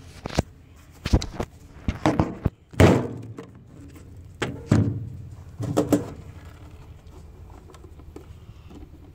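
Handling thumps and knocks as a phone and a plastic cup are moved about and set on a table: a run of sudden knocks over the first six seconds, the loudest about three seconds in.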